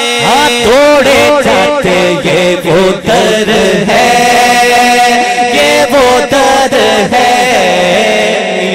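A male naat singer singing an Urdu devotional phrase through a hand microphone, in a wavering, ornamented melody with one long held note about four seconds in. Backing singers hold a low hum beneath him.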